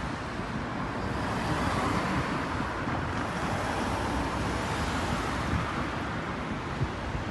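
Steady rush of road traffic passing on a city street, swelling slightly about two seconds in.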